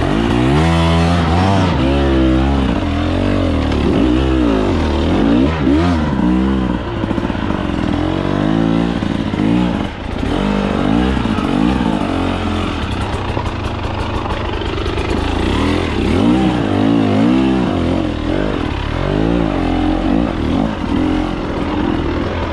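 Two-stroke dirt bike engine of a 2024 KTM 300 TBI revving up and down over and over under riding load, its pitch climbing and dropping with each blip of the throttle.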